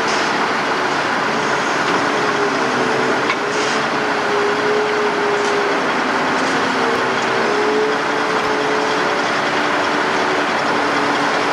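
Heavy log-yard machinery running steadily, with a slightly wavering whine over the engine noise and a few light knocks.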